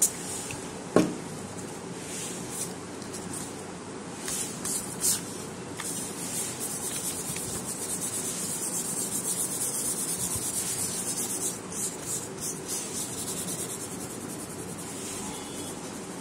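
A steady high chirring like insects, loudest in the middle, with quick even ripples. Over it come a few sharp clicks and light rubbing as paper and a glue stick are handled.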